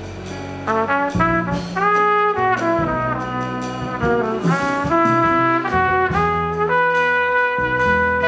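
Trumpet playing a jazz melody in short phrases over piano, bass and drums, settling near the end onto one long held note.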